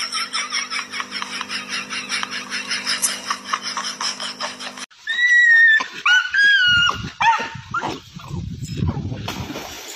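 A rapid, even pulsing sound with a low hum under it cuts off suddenly about halfway through. A dog then gives several short, high-pitched whimpering whines, each rising and falling, followed by a low rumbling noise.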